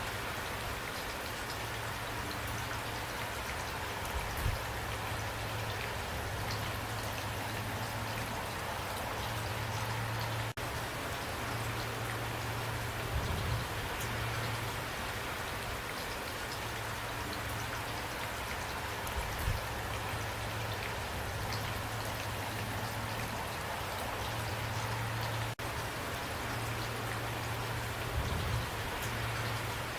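Steady heavy rain falling, an even hiss of drops with a few dull low thumps now and then. The sound dips out very briefly twice.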